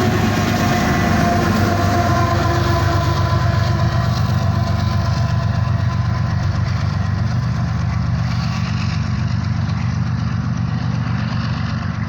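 Empty coal train rolling past, with a steady low engine drone under the noise of the cars; the higher noise thins out about four seconds in and the whole sound slowly fades.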